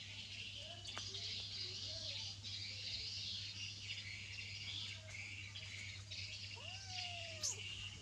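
Steady high chirring of birds and insects, over a low steady hum. Near the end come two short animal calls, each rising and then falling in pitch.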